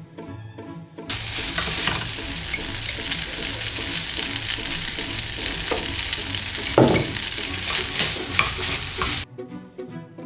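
Fried rice with diced potato, onion, carrot and green pepper sizzling in a nonstick frying pan as it is stirred and tossed with a wooden spatula, with scrapes and knocks against the pan and one louder scrape about seven seconds in. The sizzling starts about a second in and stops about a second before the end, with background music with a steady beat around it.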